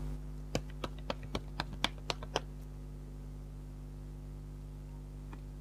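A quick run of about nine light clicks and taps over two seconds, from hands handling tarot cards, over a steady low electrical hum.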